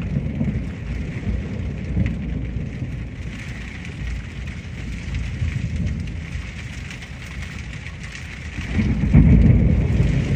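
Heavy rain falling steadily, a continuous hiss, under deep rumbling that fades over the first few seconds and swells again near the end.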